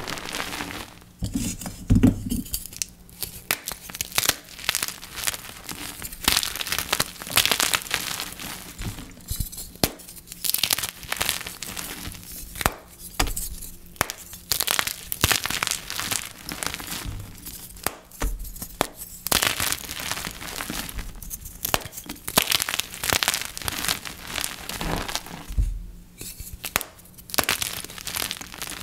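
Blocks of dyed gym chalk (magnesium carbonate) being crushed, a long run of irregular crunches and crumbling crackles.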